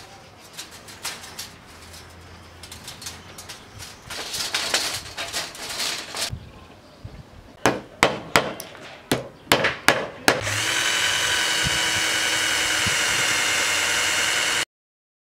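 Light clicking and scraping of thin metal tin strips being cut and handled, then about eight sharp knocks of a nail being hammered into a wooden frame. A cordless drill then runs steadily with a constant whine, boring through the metal-edged panel, and cuts off suddenly near the end.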